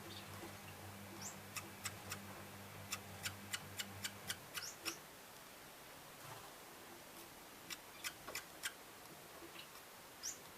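A sick common waxbill coughing in short, sharp clicks: a run of about ten in the first half and a few more near two-thirds of the way through, with a few faint high chirps. A low hum stops about four seconds in.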